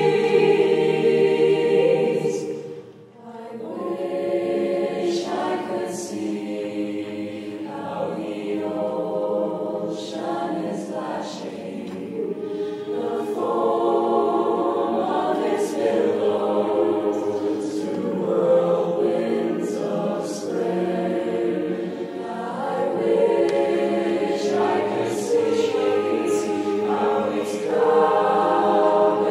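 Unaccompanied mixed choir in divided parts singing a slow, soft passage. A held chord breaks off about three seconds in; then altos, tenors and basses sing words while the sopranos hum, later switching to 'doo doo'.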